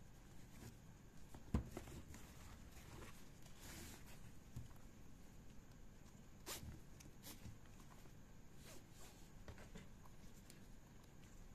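Faint handling of a waist bag's nylon webbing strap and plastic buckle: scattered small clicks and short rasps of the strap sliding through the buckle, with one sharp knock about a second and a half in.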